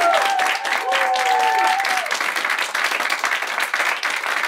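Small audience clapping, with voices cheering over the first two seconds.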